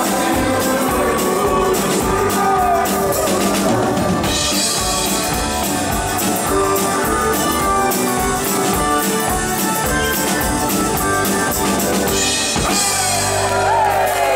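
A live rock band playing: drum kit, electric guitars, bass and accordion. About twelve and a half seconds in, the drum beat stops and a chord is held out, with bending guitar notes above it.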